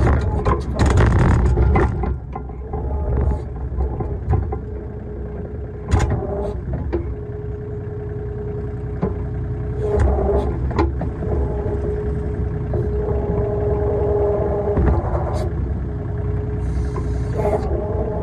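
RK25 compact tractor's diesel engine running steadily under load while its backhoe works, with a steady hum and occasional sharp clanks and knocks from the digging.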